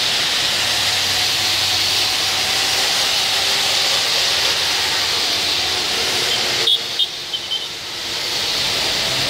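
Steady hiss of heavy rain mixed with the swish of car tyres on the streaming wet road as traffic passes. A few short sharp knocks about seven seconds in.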